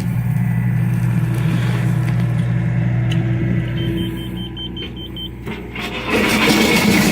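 John Deere excavator's diesel engine running steadily, with a short run of quick high beeps in the middle. From about six seconds in, a loud rough noise of the machine working rises over the engine.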